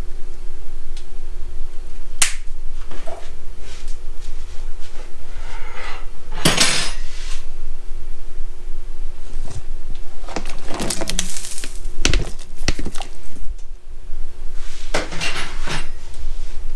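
Cookware and utensils clinking and clattering against a cast-iron Dutch oven in several separate bursts, over a steady low hum.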